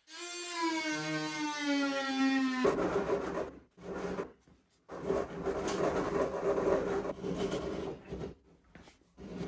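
Oscillating multi-tool buzzing as its blade cuts a notch in a wooden boat frame, its pitch sagging slightly under load, then stopping after about two and a half seconds. Uneven scraping and rasping on the wood follows, in short strokes with brief pauses, as the notch is worked by hand.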